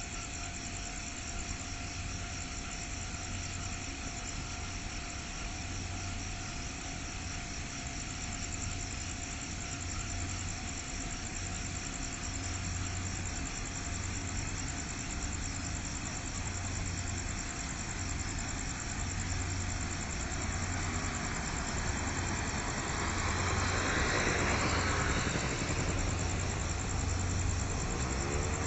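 Low steady rumble of an approaching train, with a slow regular throb, growing gradually louder.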